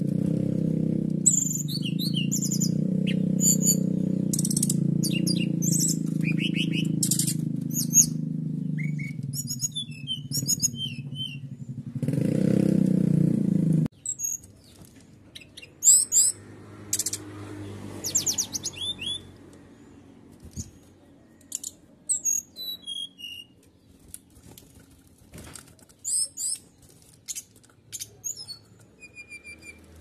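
Caged brown-chested jungle flycatcher (SRDC) singing a long, varied song of rapid high trills and chirps, with canary-style phrases in its repertoire. A loud, low, steady hum runs under the song and cuts off suddenly about halfway through.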